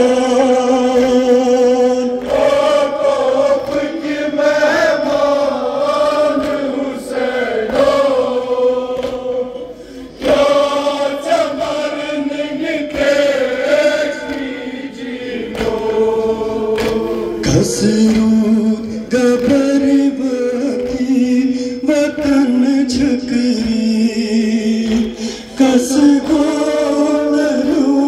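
Men's voices chanting a Kashmiri noha, a Shia mourning lament, sung together in chorus, with a short break about ten seconds in.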